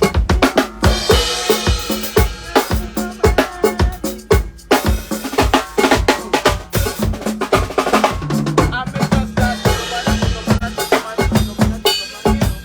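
Loud drum-heavy music with rapid, closely spaced drum hits: snare, rimshot and kick.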